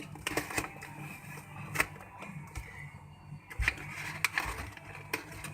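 Plastic packaging wrap being handled and picked at by hand: scattered crinkles, clicks and taps at an uneven pace.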